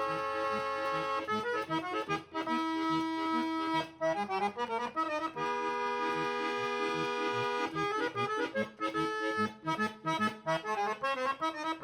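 Background music led by an accordion, playing held chords that change every second or two over a bouncy bass line.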